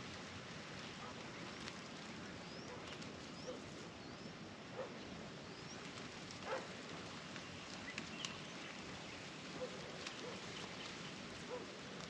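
Faint steady hiss with a few soft, short animal calls scattered through it: some quick high chirps early on and brief lower calls, the loudest about six and a half seconds in.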